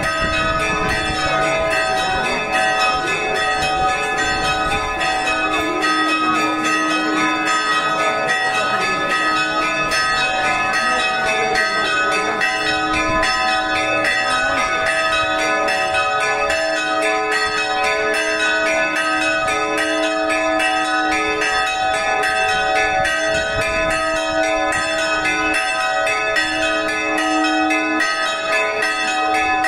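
Church bells ringing in a fast, continuous peal of evenly repeated strokes, over the voices of a crowd in the street.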